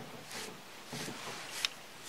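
Metal-pin brush strokes through a black cat's fur, a hiss about twice a second, with a sharp static-electricity crackle from the fur about one and a half seconds in.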